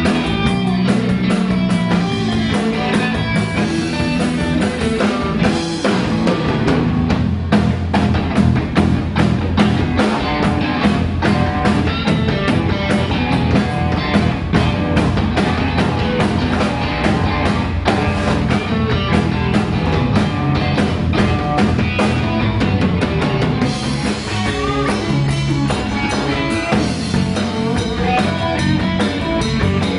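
Live blues-rock band playing an instrumental passage on electric guitar, bass and drum kit, with a steady beat.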